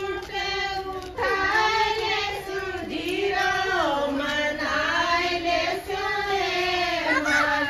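Women singing a Rajasthani folk wedding song together in high voices, in long held notes that slide slowly between pitches.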